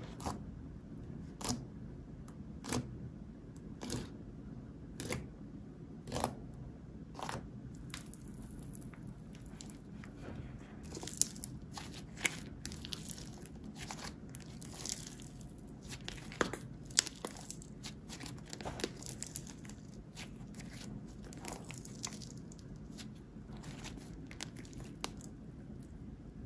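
Hands pressing, poking and stretching a glossy slime: soft wet clicks and pops, evenly spaced about once a second at first, then a denser run of crackling pops as the slime is pulled and folded.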